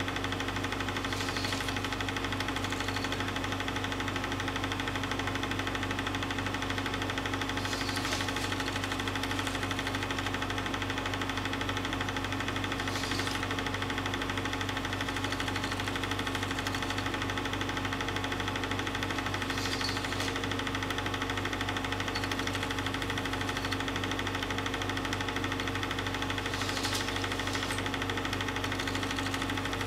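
Film projector running: a steady mechanical hum and rattle from its motor and shutter mechanism, with a few faint ticks.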